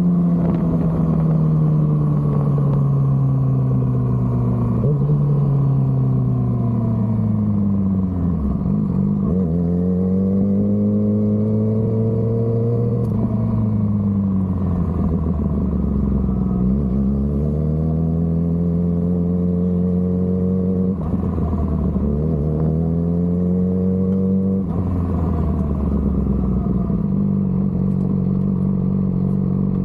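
Yamaha R6's inline-four engine running at low revs as the motorcycle rolls slowly. Its pitch falls and rises several times as the throttle is closed and opened, then holds steadier near the end.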